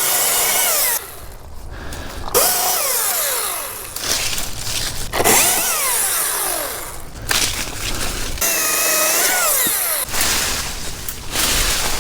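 Chainsaw revved in four short bursts, cutting tree limbs; the engine pitch drops away after each burst as the throttle is released.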